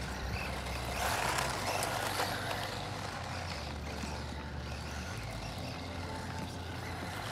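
Small brushless RC truck driving on an asphalt street: faint electric motor whine and tyre noise, over a steady low rumble.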